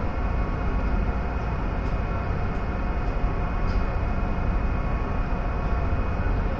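Steady low drone of a Lake Ashi sightseeing cruise ship's engines heard from on deck while under way, mixed with a constant rush of wind and water.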